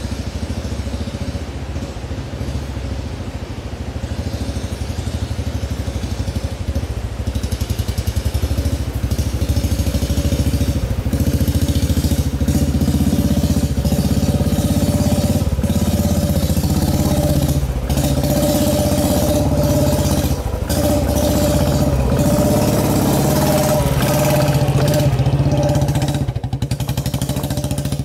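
Motorcycle engine running at low revs as the bike rides down a rough, rocky dirt track, growing louder as it comes closer, with the engine note dipping briefly every few seconds.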